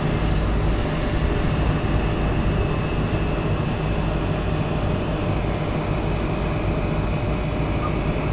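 Fire engine's engine running steadily at the scene, a low continuous rumble with a faint steady whine above it.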